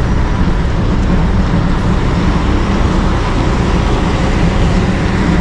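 Steady noise of a vehicle on the move: engine and road noise with a constant low hum.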